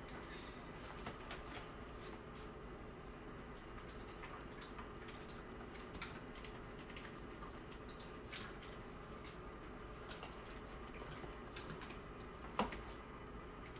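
Faint steady hum with light scattered clicks and taps, and one sharper click near the end.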